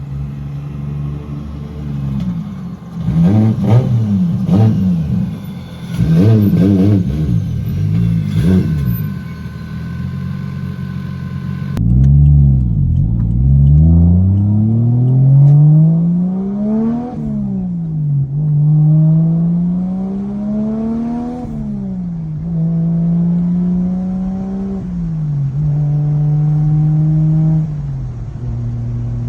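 Car engine idling with several sharp free revs blipped up and dropped back. After a cut, a car accelerates hard through the gears, its engine note climbing and falling back at each upshift four or five times, then settling to idle.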